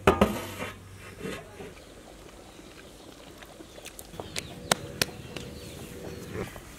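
Large aluminium plate clattering with a short metallic ring as it is handled and set down, followed by a few sharp clicks about four to five seconds in.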